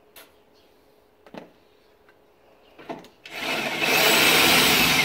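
A few light clicks, then about three seconds in a corded electric drill starts up and runs loud, boring into the truck's steel frame.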